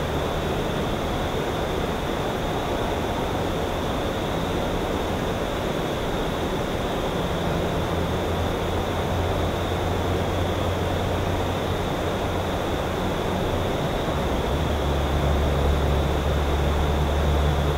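Steady rushing hiss with the low drone of a distant engine underneath, the drone growing louder about fifteen seconds in.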